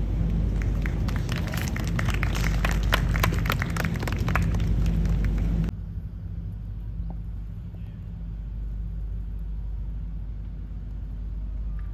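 A crowd of golf spectators clapping after a tee shot: a dense patter of claps over a low steady hum, which cuts off abruptly about six seconds in. After that only a quieter low outdoor rumble remains.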